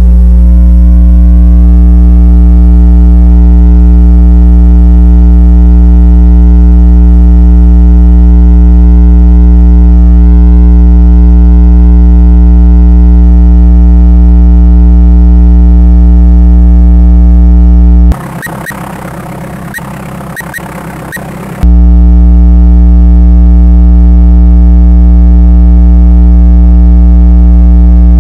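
Loud, steady electronic synthesizer drone: a dense stack of unchanging low tones. A bit past halfway it cuts out for about three seconds to a quieter crackling noise, then returns abruptly.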